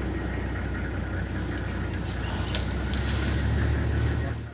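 Safari game-drive vehicle engine running with a steady low rumble and some rattles, which cuts off abruptly near the end.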